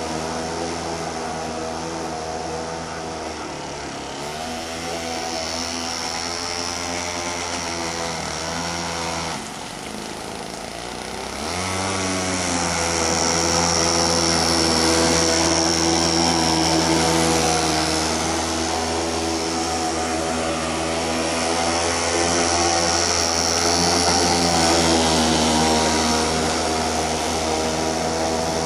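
Homemade boat's 25cc string-trimmer engine buzzing at speed. About ten seconds in its pitch drops as the throttle comes back, then rises again as it picks up speed. The sound grows louder twice as the boat runs closer.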